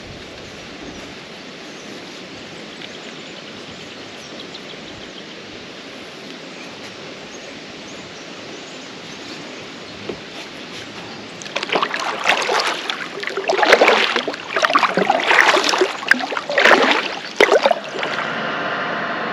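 Kayak paddle strokes splashing in the water, loud irregular splashes about every second and a half, after a stretch of steady, even water noise. Near the end this gives way abruptly to a steady hum with several tones.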